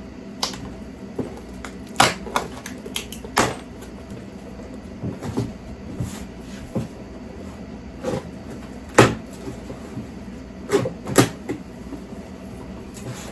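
Irregular knocks, clunks and clatters of a cardboard box being opened and its packed contents handled, over a steady low hum.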